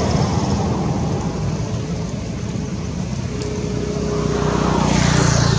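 Motor vehicle engine noise from road traffic: a steady low engine rumble that swells near the end, with a faint steady whine appearing partway through.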